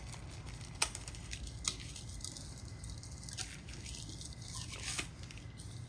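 Packaging and accessories being handled: a few sharp clicks and light rustling over a steady low hum.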